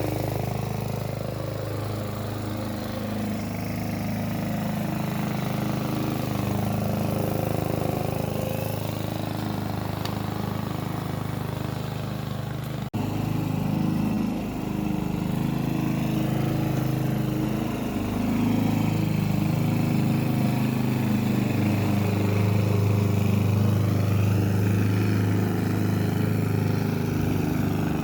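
Hyundai HY145V petrol lawn mower engine running while mowing grass, its pitch dipping and recovering as the load changes. A brief sudden break comes about halfway through.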